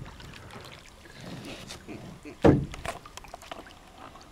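A caiman snapping at meat held over the water on a pole, with one loud sudden splash about two and a half seconds in. Water laps quietly around it.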